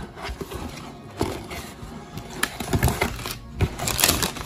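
Cardboard bakery box and its tissue-paper lining being handled: scattered clicks and crinkles, with a louder rustle of paper near the end.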